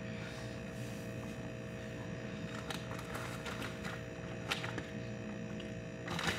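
Room tone: a steady hum with a few faint clicks, and a brief burst of rustling noise near the end.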